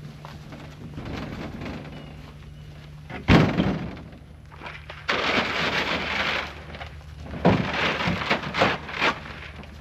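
A heavy thunk about three seconds in, followed by a burst of rustling, scraping noise and then a quick run of knocks and clatter.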